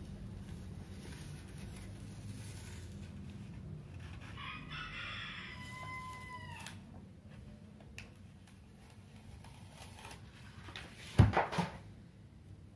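A rooster crows once in the middle, a call of about two seconds that ends in a held note bending downward. Near the end comes a single loud knock with a rustle, the loudest sound here. Under both is a faint crackle of the vinyl decal sheet being handled.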